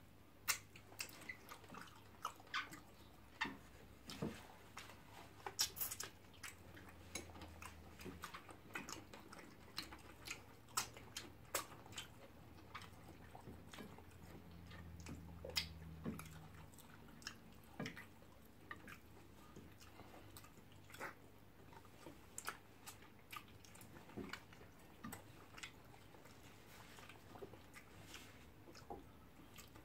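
Close-up eating sounds from two people eating fish in soup by hand: chewing, lip smacks and finger-sucking, heard as a steady scatter of irregular sharp clicks.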